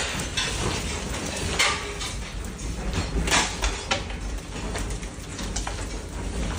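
Earthquake shaking: a steady low rumble with irregular rattling and clattering knocks from loose objects and fittings being shaken.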